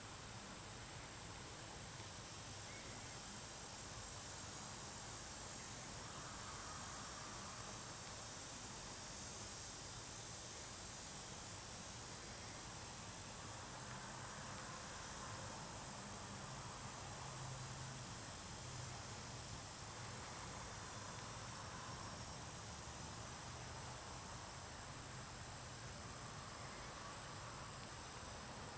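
Insects trilling in one steady, high-pitched, unbroken tone over a faint even hiss.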